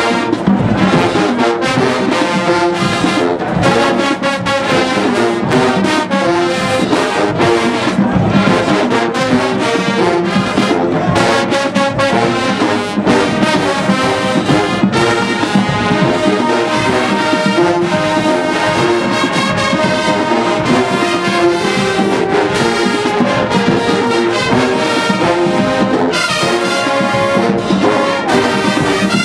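Marching band playing at full volume: massed brass, with trumpets, trombones and sousaphones, over marching percussion, the drum hits keeping a steady beat.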